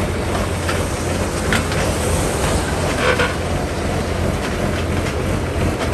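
Rice combine harvester's engine running steadily with a low hum, with a few brief light knocks or clicks over it.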